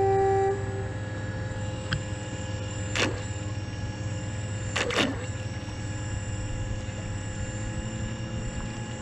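Kayak thruster motor running steadily, a constant hum with a whine above it. A beep ends about half a second in, and sharp knocks come about three and five seconds in.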